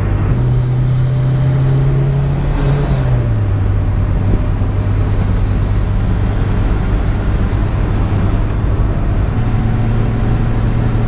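Cabin noise of a Mitsubishi Evo 8 RS at highway speed: the turbocharged four-cylinder engine drones with tyre and road noise, its pitch stepping up about half a second in, dropping back around three seconds in, and rising again near the end. The intermittent howl the owner is trying to reproduce is not heard.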